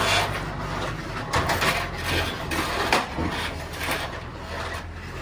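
Irregular knocks and clatters, several in all, over a low engine hum that fades about halfway through.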